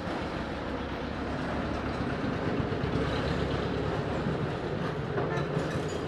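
Steady low background rumble with hiss, with no distinct events.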